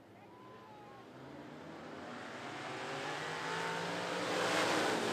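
A pack of dirt-track stock car V8 engines accelerating together, the sound swelling steadily and rising in pitch as the field comes toward the microphone, loudest near the end.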